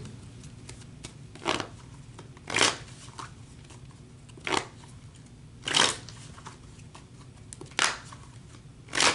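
Tarot cards being shuffled by hand: six short swishes of the deck, a second or two apart.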